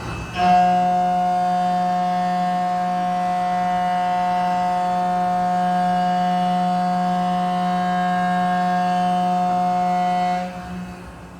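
Vertical machining center milling a part: the spindle and cutter give a loud, steady whine at one unchanging pitch during a continuous cut. It starts about half a second in and stops abruptly near the end.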